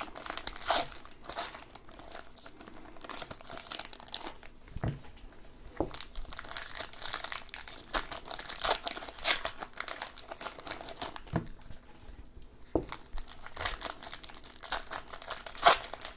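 Wrappers of baseball trading-card packs being torn open and crinkled by hand, an irregular crackling with scattered sharp snaps.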